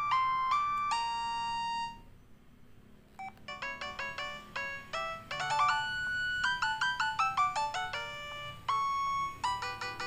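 Huawei C210e phone playing its built-in 12-voice polyphonic MIDI ringtones through its loudspeaker: one synthesized melody ends on a held note about two seconds in, and after a short pause a new, faster tune of quick notes begins.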